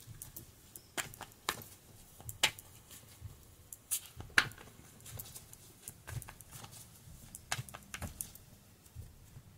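Everyday Witch Tarot deck being shuffled by hand: irregular soft clicks and snaps of the cards, a few louder ones scattered through.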